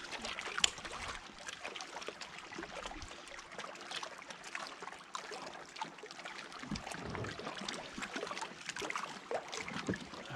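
Water splashing and trickling against a kayak, with scattered small knocks and ticks from handling on board.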